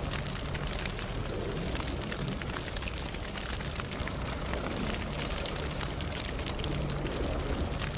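Campfire burning steadily, a constant hiss and low rumble with many small irregular crackles and pops from the burning wood.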